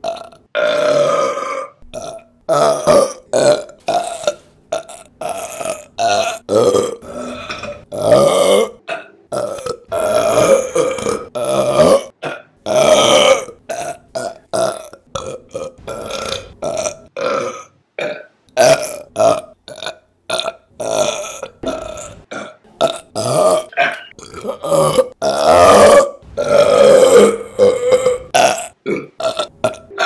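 A woman burping loudly over and over, many burps in quick succession with abrupt breaks between them, most short and a few long and drawn out.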